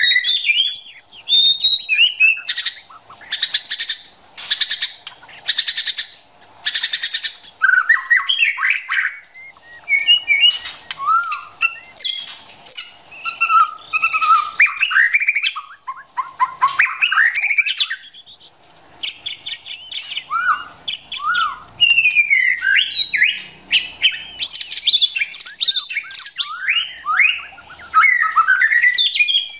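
Female white-rumped shama calling and singing, the kind of recording used to stir a male shama into song: clear whistled gliding phrases alternating with stretches of rapid harsh chattering, the chatter strongest in the first few seconds and again about two-thirds of the way through.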